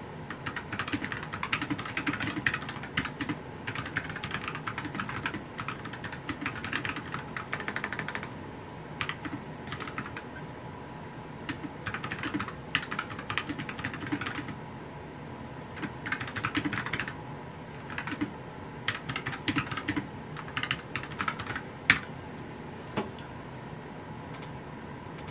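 Typing on a compact mechanical keyboard: runs of rapid key clicks in bursts of a second or two with short pauses between, and one louder clack near the end.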